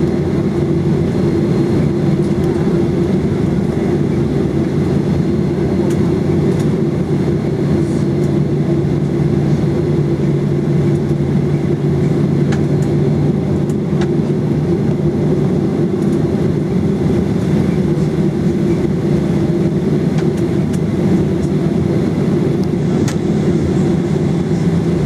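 Inside the cabin of a Boeing 737-800 taxiing at idle thrust: a steady low rumble with an even hum in it, and a few faint ticks.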